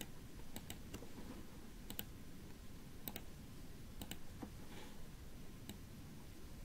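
Faint computer mouse clicks, scattered and sometimes in quick pairs, about one or two a second, over a low steady background noise.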